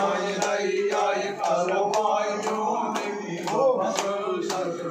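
Group of male voices chanting Vedic mantras in unison over a steady low held tone.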